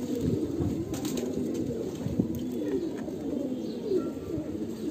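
Domestic pigeons cooing without a break, several birds' low, wavering coos overlapping.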